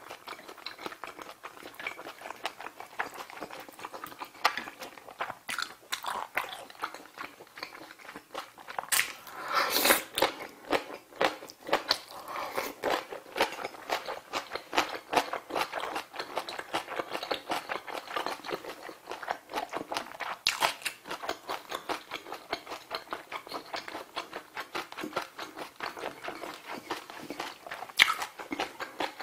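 Close-miked eating: biting and chewing kimchi and pork trotter, with many short wet mouth clicks. There is a louder patch about ten seconds in and one sharp bite near the end.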